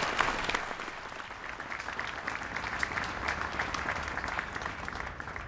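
Audience applauding, many hands clapping; loudest at the start, settling a little after about a second and going on steadily.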